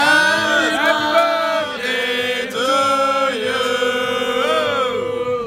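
A group of people chanting together as they raise glasses in a toast. They hold long, drawn-out notes with a few breaks and slides in pitch.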